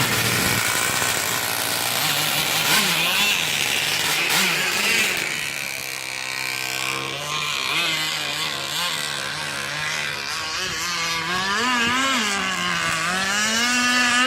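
Petrol-engined radio-controlled catamaran boat running on the water, its small two-stroke engine buzzing at high revs. The pitch rises and falls as the throttle is worked, with quick up-and-down revving in the last few seconds.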